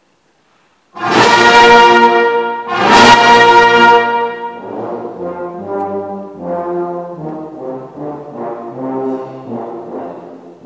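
Brass band playing: after about a second of silence, two loud full-band chords, then a quieter passage of held notes moving from chord to chord.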